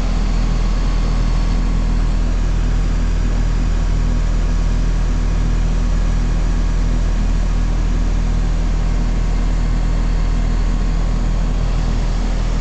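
Heil 3-ton heat pump outdoor unit running steadily in heating mode: a loud, even compressor hum under the whoosh of the condenser fan.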